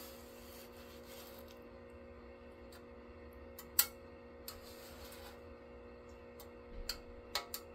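Quiet steady hum with a few faint clicks: one sharper click about four seconds in and a small cluster near the end.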